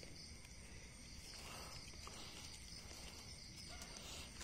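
Faint, steady chirring of night insects, an even high-pitched drone with no breaks.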